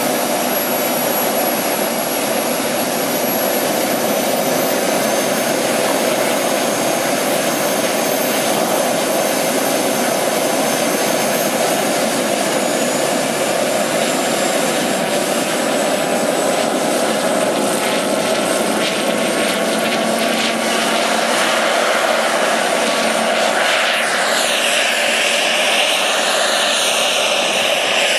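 JetCat HP5 model turbine of a Graupner Agusta A119 RC helicopter running with its spinning rotor, a steady loud whine that rises slowly in pitch. About 24 seconds in the sound starts to waver as the helicopter lifts off.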